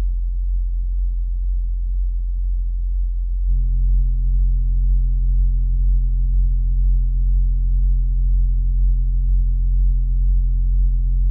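Car audio subwoofer, driven by two Sundown SAZ-2500 amplifiers, playing a steady deep bass tone that steps up louder about three and a half seconds in as the volume is turned up.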